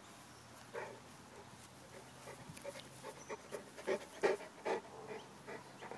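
Young mastiff cross panting close to the microphone: a quick run of short breaths that grows louder about four seconds in.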